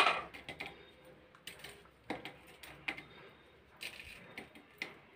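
Oreo cookies being snapped and crumbled by hand into a steel tumbler of milk: scattered sharp cracks and light clicks, the loudest right at the start.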